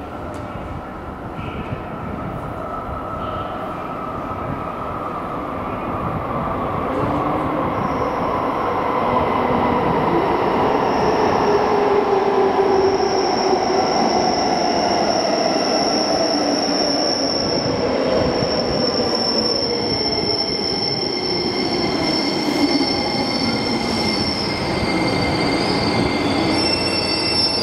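Electric commuter train arriving through a subway tunnel and running into an underground platform. A rumble grows louder over the first ten seconds or so. Then a high, steady wheel squeal sounds as the cars roll past and slow, with more squealing tones near the end.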